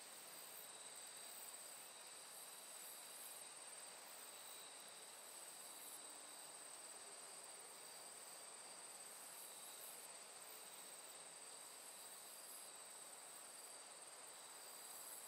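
Near silence: a faint steady hiss with a thin, high, steady whine above it, unchanging throughout.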